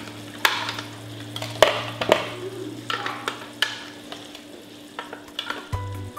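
Sharp metallic clicks and taps as wire beaters are pushed into a Cuisinart hand mixer's sockets, over a steady low hum and faint sizzling of caramel boiling on the stove. A few steady tones, likely music, come in near the end.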